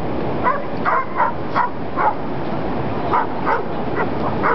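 A dog barking and yelping repeatedly, about ten short sharp barks with a brief pause in the middle, over a steady rushing noise.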